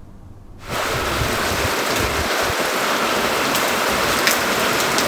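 Heavy rain pouring down, a steady downpour that starts just under a second in.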